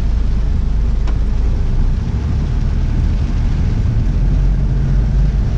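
Vehicle interior noise while driving in heavy rain: a steady low engine and road rumble under an even hiss of rain and wet tyres, with one light click about a second in.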